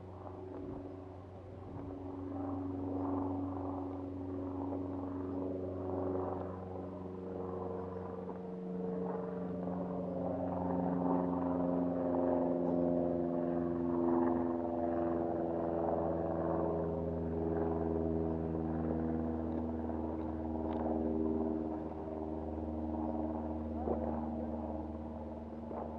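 A steady engine drone made of several held tones that slowly shift in pitch over the whole stretch.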